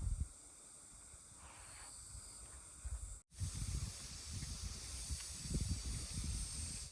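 Outdoor ambience: a steady high hiss over irregular low rumbles of wind on the microphone, with one sudden dropout about three seconds in.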